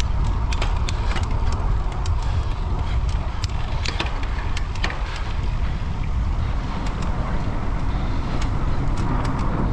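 Wind rushing over the microphone during a bike ride, a steady low rumble with a few sharp clicks scattered through it.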